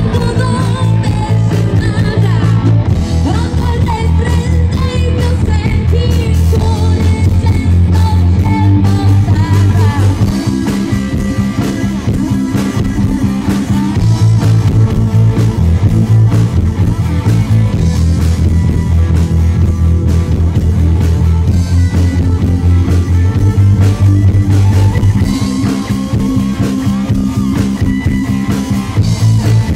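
Rock music with singing over guitar and a steady bass line.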